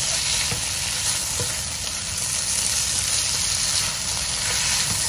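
Squid and vegetables sizzling in a wok while a spatula stirs them: a steady high hiss of frying with a few light scrapes and taps of the spatula against the pan.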